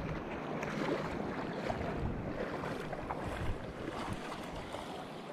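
Small waves washing in shallow surf, with wind buffeting the microphone.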